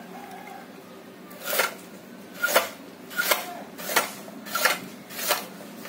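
Hand-lever vegetable cutter's high-carbon steel blade chopping down through three white radishes at once. There are six sharp chops, starting about a second and a half in and coming roughly two-thirds of a second apart.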